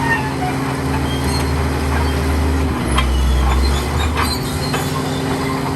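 Diesel engine of a Komatsu D65E crawler bulldozer running steadily under load, its note shifting about halfway through, with the steel tracks clanking and squeaking as it moves.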